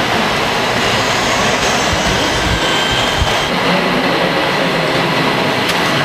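Steady din of radio-controlled model construction machines at work, with a faint steady whine over it.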